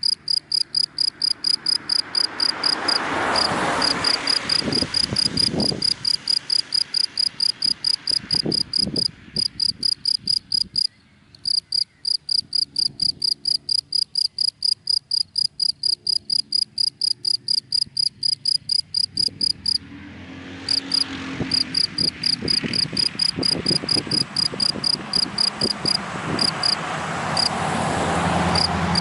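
A cricket chirping in a steady run of short, high pulses, about four a second, breaking off briefly a few times. Traffic noise from passing cars swells and fades behind it twice, early on and again through the last third.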